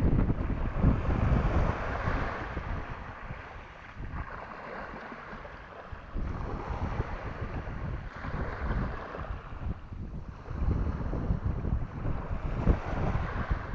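Sea waves washing in swells that rise and fade every few seconds, with wind buffeting the microphone as a steady low rumble.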